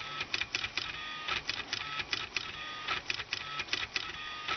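Small stepper motors from CD-drive laser sleds in a homemade pen plotter stepping the pen across the paper. A run of rapid clicks and buzzing with a short high whine repeats about once a second.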